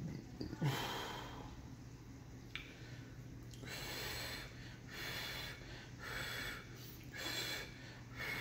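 A person blowing on a forkful of hot noodles to cool them: short breathy puffs about once a second, with a brief knock near the start.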